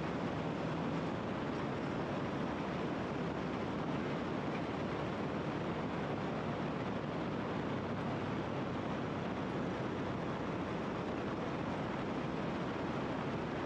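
KTM trail motorcycle's engine running at a steady pace while riding, under a constant rush of wind and road noise.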